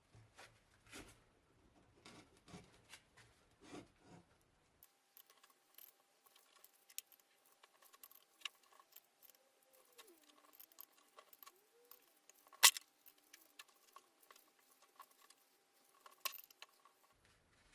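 Small metal parts clicking and clinking as they are handled, light taps scattered throughout with one sharp, much louder clink about twelve and a half seconds in.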